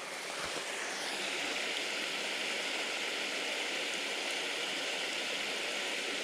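Small waterfall splashing and rushing steadily. It gets louder about a second in and then holds even.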